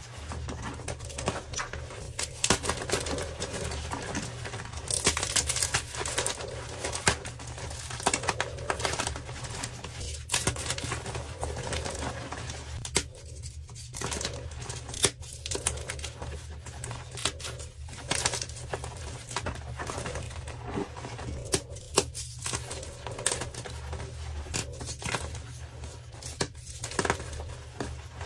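Dyed gym chalk blocks crushed and crumbled by hand: a dense, irregular crunching and crackling of breaking chalk and squeezed powder, with sharper snaps here and there.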